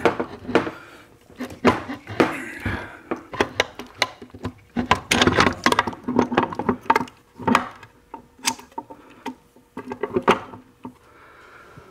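Irregular metal clinks and knocks of steel gears and shaft shifting against the case of a Ford Toploader 4-speed transmission as the gear train is worked into place by hand.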